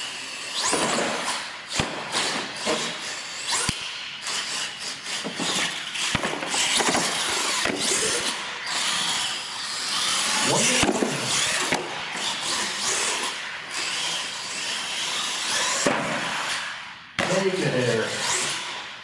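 R/C monster truck's electric motor whining up and down as it speeds up and slows, with tyre noise on a concrete floor and several sharp knocks from the truck bumping and landing.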